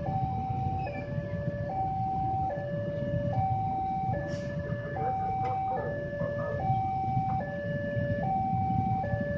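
Railway level-crossing warning alarm sounding its electronic two-tone signal, a higher and a lower tone alternating about every 0.8 seconds, over a steady low rumble of traffic waiting at the closed barriers.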